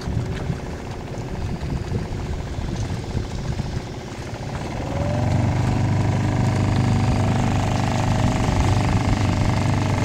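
Small outboard motor on a dinghy running under way, with wind buffeting the microphone. About halfway through the motor settles into a steadier, louder hum with a faint rising whine.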